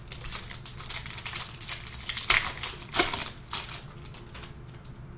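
A stack of Panini Prizm basketball cards being flicked and shuffled through by hand: a rapid run of crisp card snaps and rustling that thins out about four seconds in.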